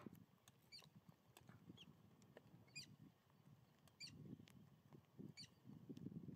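Faint savanna ambience: short high chirps about once a second over a low rustling that grows louder after about four seconds.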